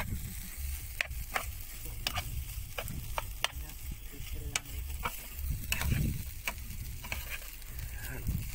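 Fried rice stirred and scraped in a pan with a plastic rice paddle, the paddle knocking against the pan in irregular clicks. The rice sizzles as it fries on a gas burner.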